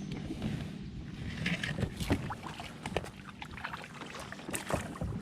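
Rustling, scraping and scattered clicks and knocks from a kayak moving among tree branches.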